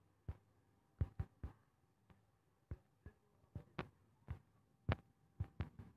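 Faint, irregular clicks of keys being tapped on a smartphone's on-screen keyboard, about a dozen taps as a message is typed.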